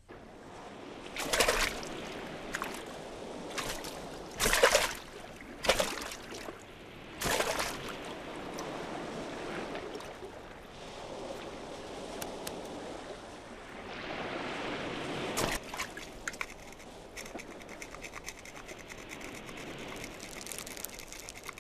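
Shallow water sloshing and splashing as people wade and grab at fish, with a handful of sharper splashes, most of them in the first half.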